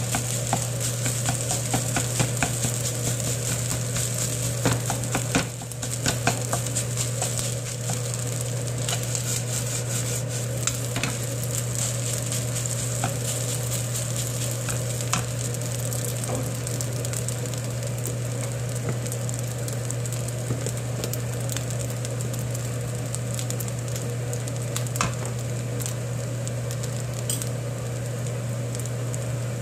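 Kimchi fried rice sizzling in a non-stick wok while a wooden spoon stirs and scrapes it, with frequent sharp clicks of spoon on pan that thin out in the second half. A steady low hum runs underneath.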